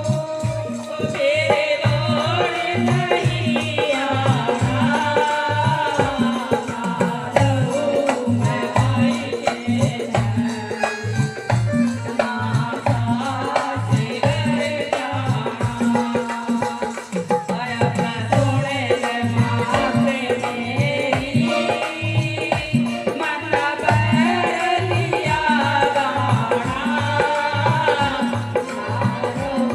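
Indian devotional folk music: a wavering, ornamented melody over a steady hand-drum beat and shaken rattle percussion.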